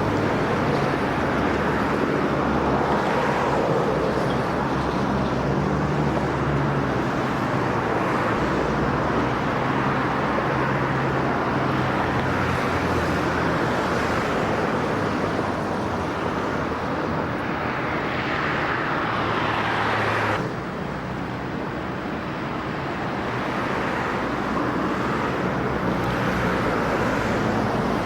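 Motorboat engines running steadily over outdoor city traffic noise. The noise swells about eighteen seconds in, then drops suddenly a couple of seconds later and builds back up.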